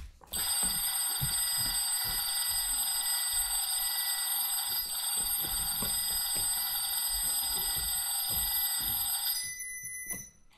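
Electric bell, like a school bell, ringing steadily for about nine seconds, played over a hall's speakers, then cutting off abruptly. Soft low thuds sound underneath it.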